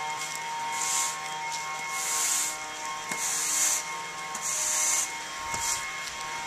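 Water spray from a toy lawn sprinkler fed by a garden hose, hissing in regular bursts about once a second.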